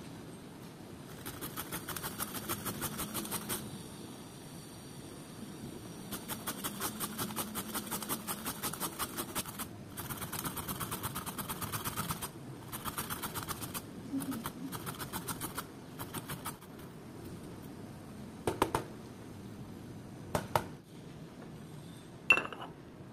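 Raw papaya being grated on a plastic box grater: quick strokes at about five a second, in several runs with short pauses. Near the end come three sharp knocks; the last and loudest rings like metal, as a steel pestle strikes a steel mortar.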